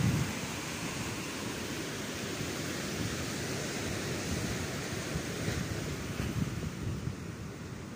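Ocean surf breaking and washing up a sandy beach in a steady rush, with wind buffeting the microphone in low rumbles and a stronger gust right at the start.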